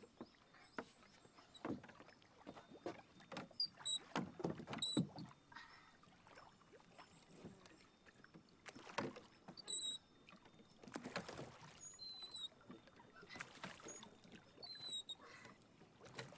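Wooden rowboat being boarded and rowed: irregular wooden knocks as the boy moves about the hull and works the long oars, with water lapping at the boat. Short high bird chirps come a few times.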